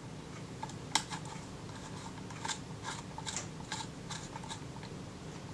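Light, irregular metal clicks and scrapes as the shutter retainer ring of a Kodak Retina camera is turned into place by hand, the sharpest click about a second in.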